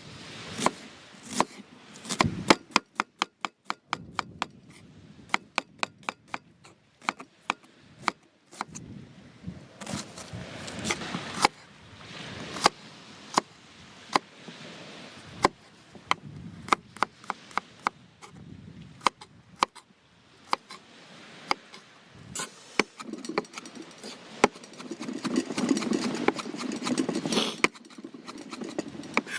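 Repeated sharp knocks of a hand tool striking, irregular in spacing, with a fast run of light taps about three to eight seconds in.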